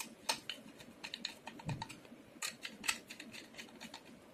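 Screwdriver tightening a screw into a comb hinge's counter plate on an aluminium window profile: irregular small sharp clicks and taps of the tool and screw against the metal, a few a second.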